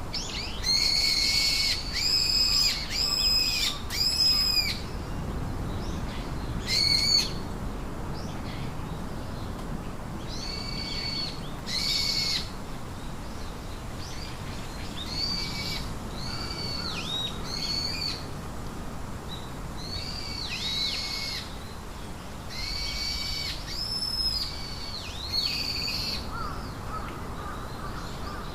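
A bird calling over and over: short, arched, high calls, a few close together in the first few seconds, then spaced out one or two at a time, over a steady low outdoor background.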